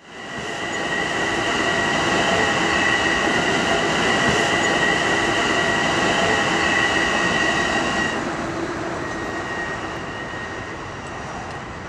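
A passenger train passing close by, its wheels running on the rails with a steady high squeal. The squeal dies away about eight seconds in and the rumble fades as the train moves off.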